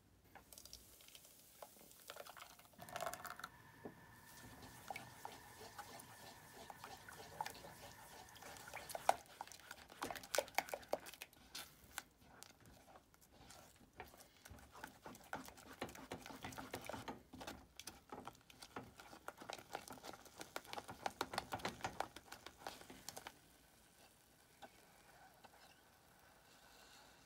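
Silicone spatula stirring and scraping thickening custard in an enamel pot over high heat: a busy run of wet smacks, squelches and clicks that eases off near the end.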